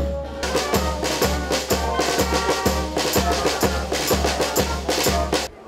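Upbeat music with a heavy drum beat, about two beats a second, that cuts off suddenly near the end.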